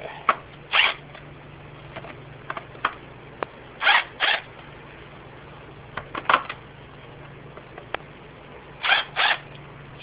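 A 1/4-inch impact driver firing in several short bursts, often in pairs, as it backs the rocker-arm bolts out of the cylinder head a little at a time.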